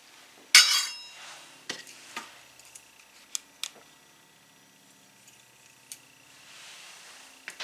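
Kitchenware clinking: a sharp ringing clink about half a second in, then several lighter clicks and taps, as beaten eggs are poured from a small glass bowl into a stainless steel mixing bowl and the glass bowl is scraped out with a silicone spatula.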